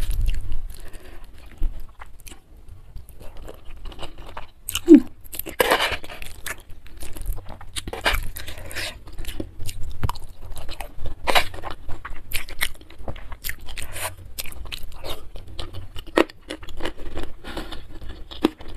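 Close-miked chewing and biting of a mouthful of stir-fried seafood kwetiau (flat rice noodles), with irregular crunchy clicks throughout.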